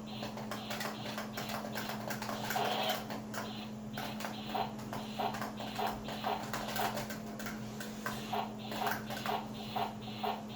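Hard toys knocking and clattering together in play, a quick irregular run of knocks several times a second over a steady low hum.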